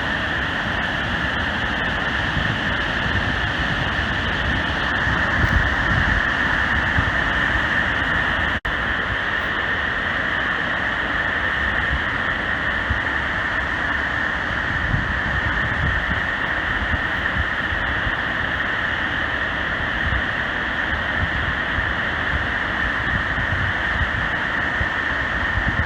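Steady roar of the Great Falls of the Passaic River, a large waterfall, with wind buffeting the microphone in uneven low gusts. The sound cuts out for an instant about eight and a half seconds in.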